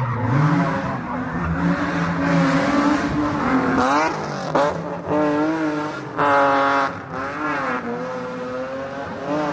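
Porsche 911 SC rally car's air-cooled flat-six engine revving hard, its pitch repeatedly rising and dropping through gear changes and throttle lifts, at its loudest a little past the middle.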